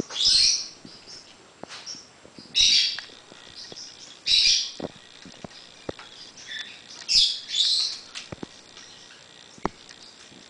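Congo African grey parrot giving five short, raspy calls, the last two close together, with scattered sharp clicks from its beak working a toy in between.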